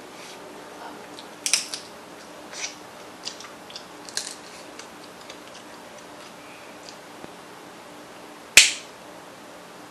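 Close-up eating sounds: several short wet mouth and lip smacks while chewing and licking sauce off fingers, then one loud sharp crack near the end as a crab leg shell is snapped open by hand.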